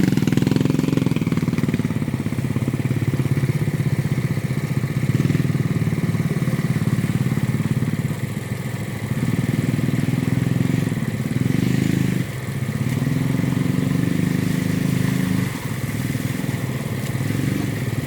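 An engine running steadily with a fast, even beat, dipping briefly in level three times.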